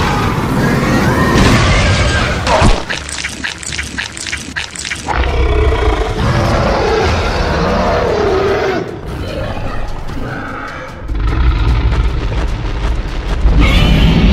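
Cartoon monster roars and growls over dramatic background music, with a run of rapid sharp hits a few seconds in.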